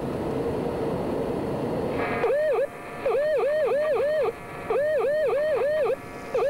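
A rushing noise cuts off about two seconds in and gives way to a warbling electronic tone switched on and off in Morse-like dots and dashes (short, long, long, short): a hidden fox transmitter's keyed signal as heard on a hunter's radio receiver.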